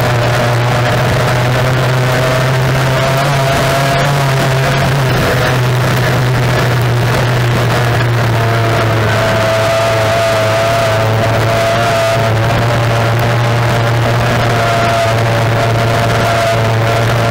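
Racing tunnel boat's outboard engine running hard at racing speed, heard from onboard: a loud, steady drone with a slightly wavering higher tone over a deep constant rumble.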